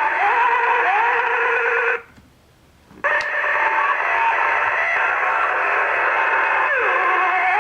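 Small sound-book speaker playing spooky Halloween sound effects: tinny gliding, wavering electronic tones. They stop for about a second, then a click and another spooky sound starts.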